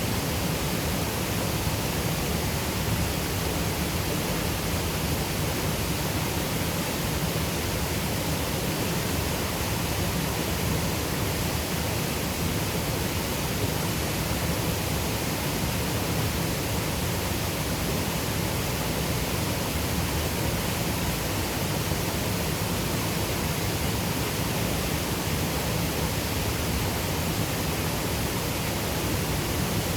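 Waterfall on a highland river, the Water of Nevis, rushing steadily: an even, unbroken roar of falling water.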